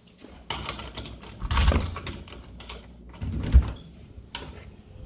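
A door being opened and a person stepping through it while carrying the phone: clicks, knocks and handling noise, with two heavy thumps, one about a second and a half in and one about three and a half seconds in.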